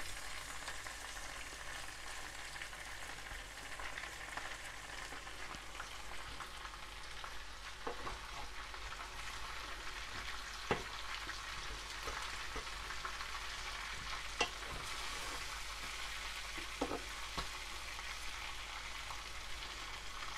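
Chicken pieces sizzling steadily as they fry in ghee in a pot, the cooking liquid boiled away. A wooden spoon stirs them, with a few short knocks against the pot.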